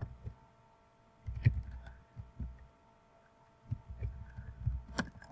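Computer keyboard being typed on: irregular dull thumps with a few sharper key clicks, over a faint steady electrical hum.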